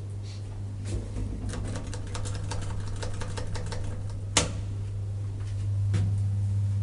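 1974 KONE traction elevator machinery: a quick run of mechanical clicking over a steady low hum, then a single sharp clack about four seconds in and another near six seconds.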